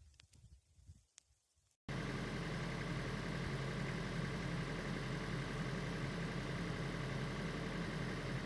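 Faint scattered ticks, then about two seconds in a sudden cut to a steady low hum of a vehicle engine idling.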